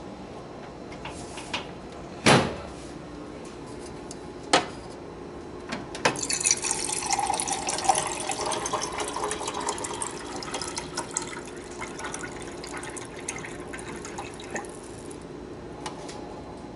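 A water cooler converted from a bottom-loading bottle to a plumbed, filtered supply dispenses water into a small glass. The pour starts about six seconds in and runs for about nine seconds. A sharp knock about two seconds in and a smaller click a couple of seconds later come before it.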